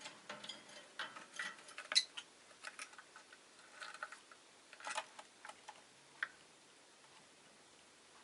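Rosy-faced lovebird making quick, irregular small clicks and taps, several a second, which stop about six seconds in.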